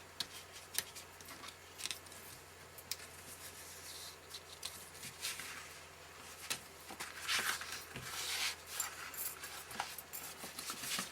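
Stiff card pieces being handled, with light rustling and scraping and scattered small clicks and taps as metal brads are pushed through and fitted. The rustling gets busier about two-thirds of the way in.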